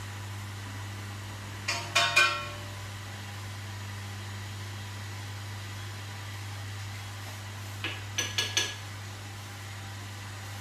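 Kitchenware clinking against a cooking pot at the stove: two short clusters of three or four ringing metallic clinks, about two seconds in and again some six seconds later, over a steady low hum.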